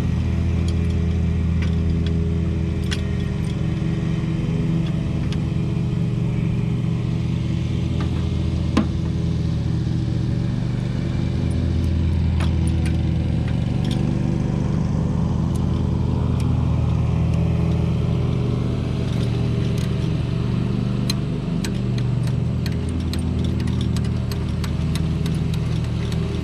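An engine running steadily at an even speed, with scattered light clicks and taps over it.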